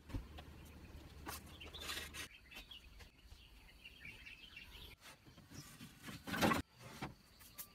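Birds chirping faintly, with a few light knocks, then a clatter of wooden slats being laid into a car's boot about six seconds in.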